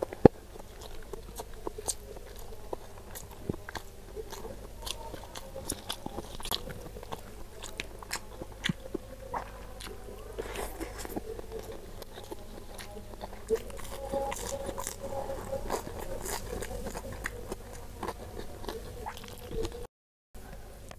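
Close-miked chewing and crunching as mouthfuls of nasi padang rice with crispy fried crumbs are eaten by hand, with many small crackly crunches throughout. A short silent gap comes near the end.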